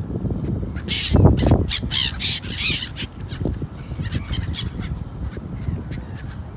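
A flock of gulls calling over open water: a run of short, harsh cries, most of them in the first three seconds and fewer after, over a low steady rumble.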